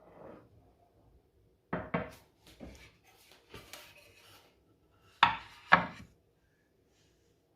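Knocks and clatter from kitchen things being handled and set down: two quick knocks about two seconds in, some scraping and rustling, then two louder knocks a little past five seconds.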